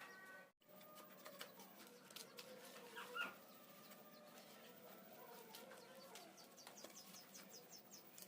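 Near silence: faint background with scattered light clicks and one short chirp-like call about three seconds in.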